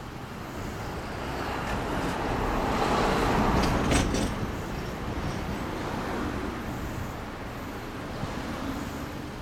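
A road vehicle passing by: traffic noise that swells to a peak about three to four seconds in, then fades away.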